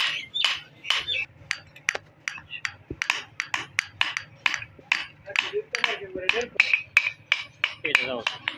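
Hand hammer striking a hot steel hatchet head on an anvil while it is forged. The blows come in a steady run of sharp strikes, about two to three a second.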